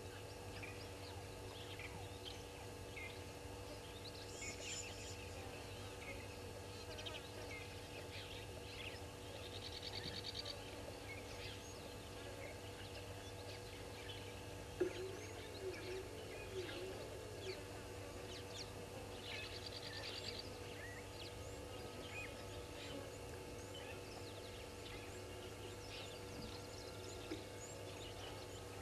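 Bush ambience of scattered bird chirps and calls over a steady hum, with a short fast trill twice and a run of four low rising-and-falling calls about halfway through.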